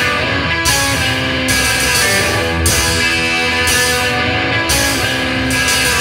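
Psychobilly-surf rock band playing live: electric guitars, bass and drums with cymbals.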